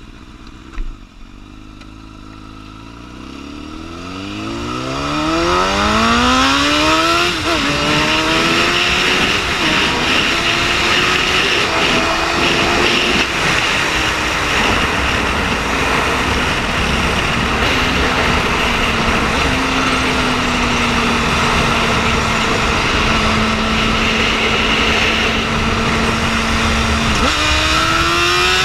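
Liter-class sport motorcycle engine accelerating hard, its pitch climbing steadily for about six seconds, then dropping in steps through several quick upshifts. It settles into a steady cruise under heavy wind rush and starts rising again near the end.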